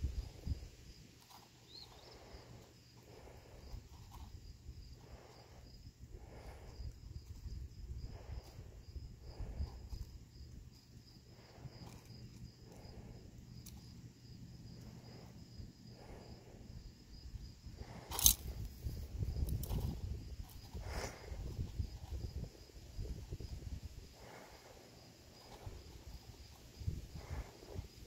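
Chipmunk rummaging in and cracking sunflower seeds in a metal tin: soft, irregular rustles and cracks about once or twice a second. One sharp click comes about eighteen seconds in.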